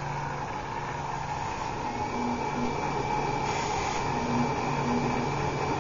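Dahlgren Wizzard engraving machine, driven by a Quality One Q3D retrofit controller, running an engraving job: a steady mechanical whir with low motor hums that break off and resume every second or so as the table moves, and a faint thin high tone from about two seconds in.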